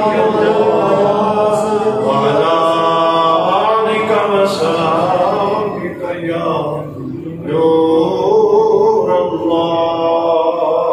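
Male devotional chanting sung without instruments, in long held, wavering notes, with a brief dip about six seconds in before the chant swells again.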